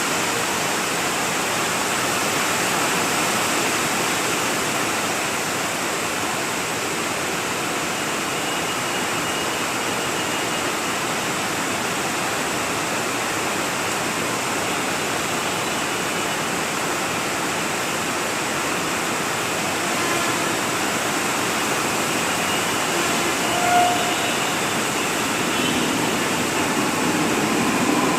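Steady, heavy rain falling, an even rushing hiss. About 24 seconds in there is one short tone, and near the end a low rumble starts to build.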